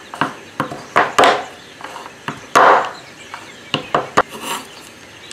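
Knife chopping a bar of milk chocolate into small pieces on a cutting board: irregular sharp knocks, about two or three a second, with one longer, louder stroke about halfway through.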